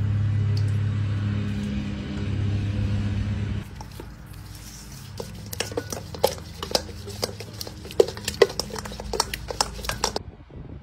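A loud, steady low hum for the first three and a half seconds. Then chicken lollipops are tossed in marinade in a stainless-steel bowl, making an irregular run of sharp clicks and knocks against the metal.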